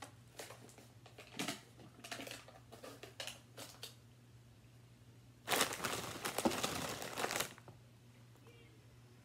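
Crinkly chip bag being handled: a few light crinkles, then about two seconds of loud crinkling a little past halfway as a hand works at the bag.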